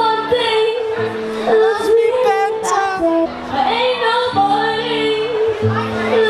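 A singer holding long notes with a slight waver over backing music with steady, long-held low notes.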